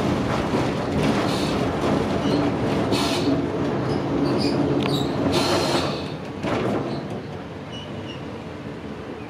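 Streetcar running, heard from inside the car: a steady rumble of motors and wheels on rail, with a few knocks over the track and brief high wheel squeals. The noise drops noticeably about six seconds in.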